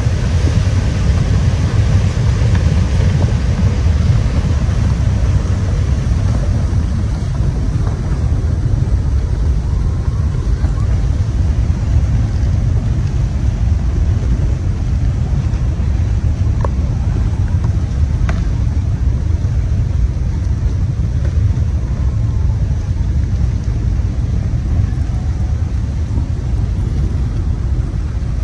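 Strong wind buffeting the microphone: a loud, steady low rumble, with two faint ticks about two-thirds of the way in.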